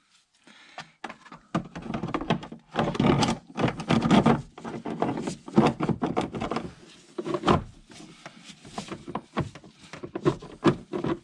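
Irregular knocks, clicks and scraping from handling an air filter and the plastic engine airbox of a 987 Porsche Cayman.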